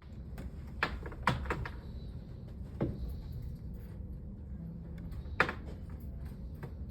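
Scattered sharp clicks and knocks, about five clear ones with fainter ones between, over a steady low hum.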